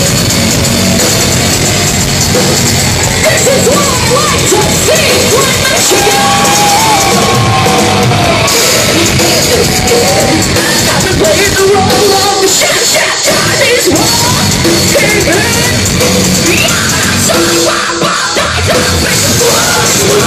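Live heavy metal band playing at full volume: two female vocalists singing and yelling over distorted electric guitar and a pounding drum kit.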